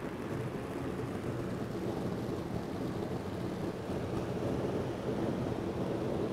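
Large electric fan running, a steady rush of air blowing onto a pan fire, with a faint hum underneath.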